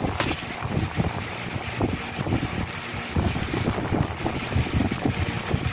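Plastic bags crinkling and rustling as gloved hands dig through bagged winch parts in a cardboard box, with irregular knocks and bumps of the parts and box.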